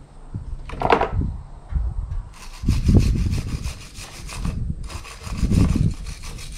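Hand wire brush scrubbing a metal ground connection point in quick back-and-forth strokes, cleaning it to bright bare metal for a good electrical ground. A short scrape comes about a second in, then two longer bouts of scrubbing.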